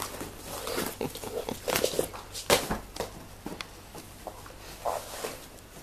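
Six-week-old Tibetan terrier puppies scuffling and playing around a fabric pet carrier: irregular scratchy clicks and knocks of paws and bodies on the floor and carrier, the sharpest about two and a half seconds in.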